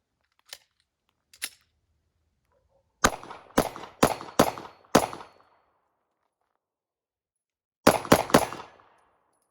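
9mm Glock micro-compact pistol fired with Hornady Critical Duty ammunition: a string of five shots about half a second apart, a pause of about three seconds, then three more quick shots, each followed by a short echo. Two faint clicks come before the first shot.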